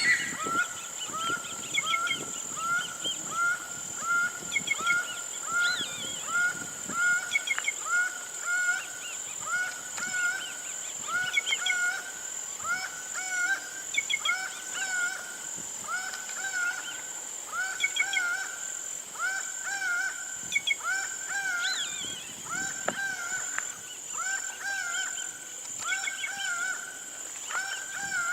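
An animal in the Caatinga scrub, likely a bird, giving the same short call over and over in a steady series. Each note rises and falls, about two a second at first and slowing to about one a second. A steady high-pitched whine, likely insects, runs underneath.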